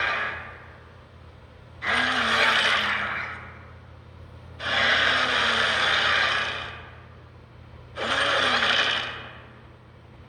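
Rhinox sound effects: a whirring, grinding mechanical effect with a low wavering tone beneath, played in repeated bursts of about two seconds. Each burst starts suddenly and fades out, coming around every three seconds.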